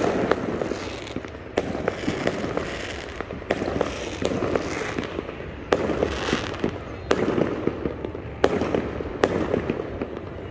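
Many fireworks going off at once: sharp bangs roughly every second, irregularly spaced, over a continuous crackling rumble of further bursts.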